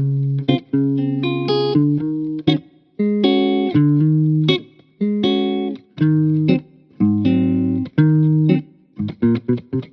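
Background music: a plucked guitar playing chords, each struck sharply and left to fade, about one a second, with a quick run of short notes near the end.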